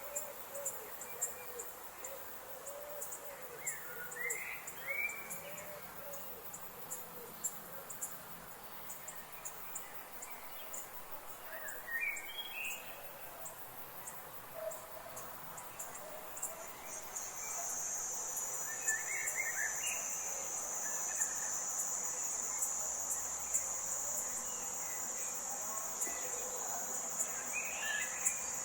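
Forest ambience of insects chirping in rapid high ticks, joined about two-thirds of the way through by a continuous high-pitched insect trill. A bird gives a short call about every eight seconds over it.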